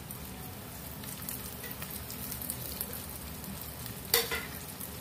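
Mashed boiled potatoes sizzling in a pan of hot oil tempered with cumin and green chilli, stirred with a spoon. A single sharp knock on the pan about four seconds in.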